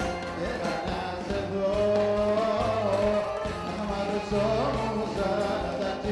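Live Greek band music: a bouzouki melody over keyboard and drums, with held bass notes underneath.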